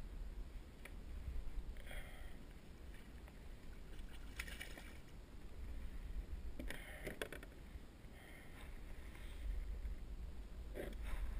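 Water splashing beside a plastic kayak as a hooked fish is handled at the hull, in four short bursts over a steady low wind rumble on the microphone.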